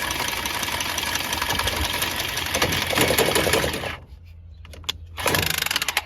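A motor-driven power tool running for about four seconds and cutting off, followed by a second, shorter run near the end.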